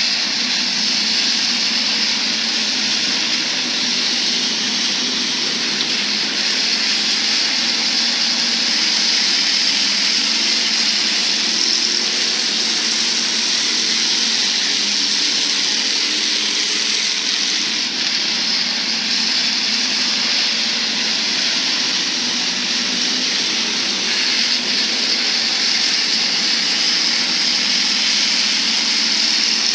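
Several Hobby Stock race car engines running together on a dirt oval, a loud, steady blended drone with no single car standing out.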